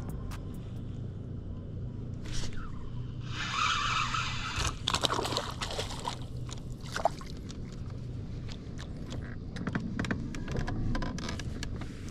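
A small fish splashing at the water's surface as it is reeled to the boat on a spinning rod, with short splashes and handling clatter over a steady low hum.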